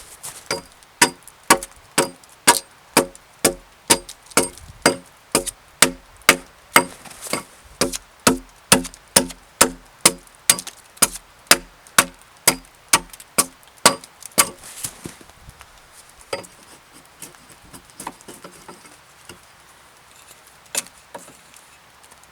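Axe chopping into a seasoned spruce log, sharp, even strokes at about two a second for about fifteen seconds, then a few scattered single strikes.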